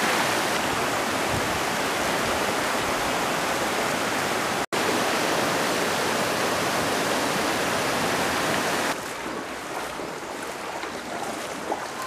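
Fast-flowing muddy floodwater from an overflowing river rushing over the ground in a steady rush of water. The sound cuts out for an instant a little before halfway, then about three-quarters through it drops to a quieter wash of water.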